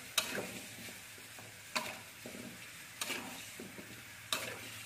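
Chicken and potato pieces sizzling in a metal wok as a metal spatula stirs them, knocking sharply against the pan four times, about every second and a half.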